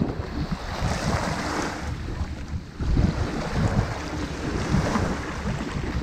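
Small waves breaking and washing up a shingle beach, the hiss of surf swelling about a second in and again near five seconds. Wind buffets the microphone with an uneven low rumble underneath.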